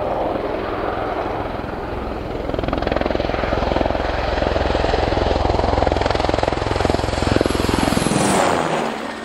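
Military Cougar twin-turbine helicopter on a very low pass: rapid rotor beat with turbine whine, getting louder as it closes in. About eight seconds in it passes right by and the whine and rotor sound drop sharply in pitch, then fall away.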